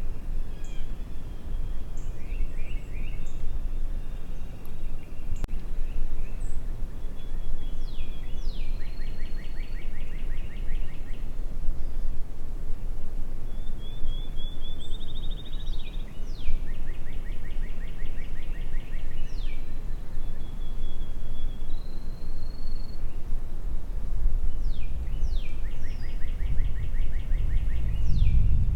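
Wind rumbling on the microphone, with a songbird singing the same trilled song three times, about every eight seconds.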